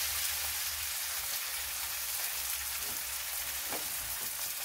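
Oil sizzling with a steady, rain-like crackle under stuffed msemen parcels frying in a pan on low heat. A few faint clicks come near the end.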